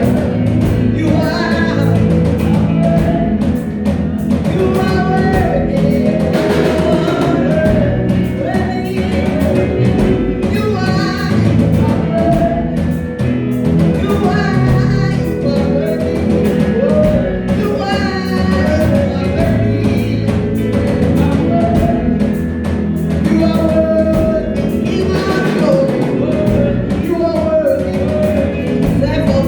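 Live gospel worship music: a band with drums and singing voices, playing steadily throughout.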